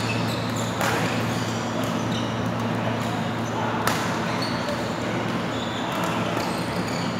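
Badminton rackets hitting a shuttlecock during a rally: two sharp hits about three seconds apart, over the steady hum of a large sports hall.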